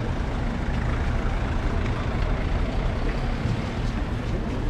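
Steady city street noise with a constant low rumble, typical of traffic heard while walking outdoors.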